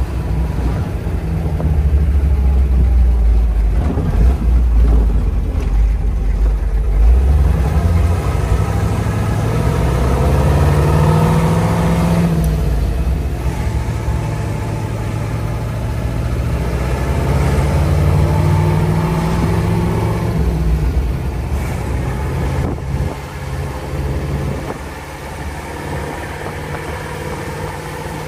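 1958 Chevrolet Corvette's fuel-injected 283 V8 pulling away and accelerating through the gears: the engine note climbs, drops at a gear change about twelve seconds in, climbs again, then eases off to a steadier, lower cruise near the end.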